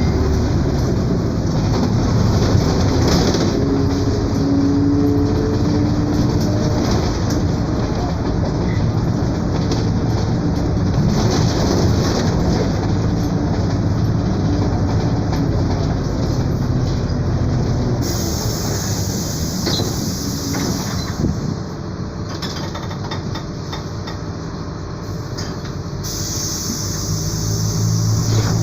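Mercedes-Benz OF 1721 BlueTec 5 bus on the move: diesel engine running and road noise with body rattles, and the differential growling. The noise eases a little past the two-thirds mark and picks up again near the end.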